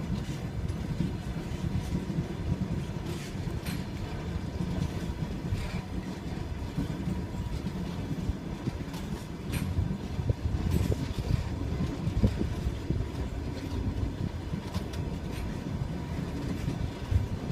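Train wheels rolling on the rails: a steady low rumble, with the wheels clicking over rail joints every so often.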